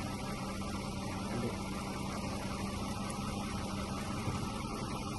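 The Lexus ES350's 3.5-litre V6 idling steadily, a constant low hum under the hood with the fresh oil circulating.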